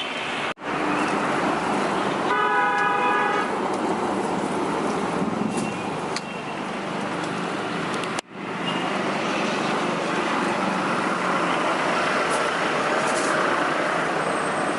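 Steady roadside traffic noise, with a vehicle horn sounding once for about a second and a half a couple of seconds in.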